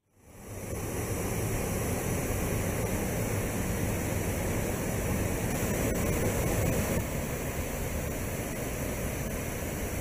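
Steady rush of water from a stream running over rocks and a waterfall, fading in at the very start.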